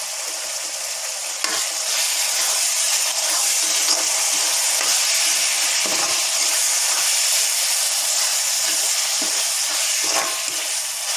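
Boneless mutton pieces and onions sizzling in hot oil in an iron kadai, frying dry with no water added, while a steel spoon stirs and scrapes them around the pan. The sizzle gets louder about one and a half seconds in and then holds steady.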